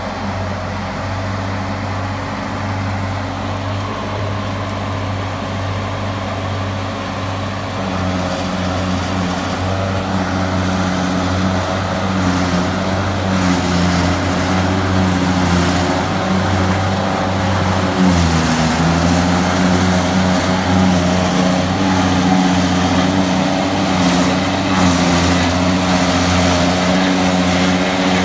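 New Holland 8360 tractor's diesel engine working under steady load, driving a trailed forage harvester that is chopping grass, with the harvester's whir and rush over the engine note. The sound grows louder as the outfit comes closer. About eighteen seconds in the engine pitch briefly sags under the load, then recovers.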